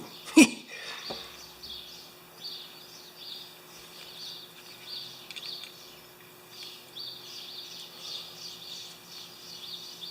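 A sharp click about half a second in as the ratchet's small detent ball and spring, dumped out of the head, hit the bench. Then small birds chirping faintly in the background, with a steady low hum.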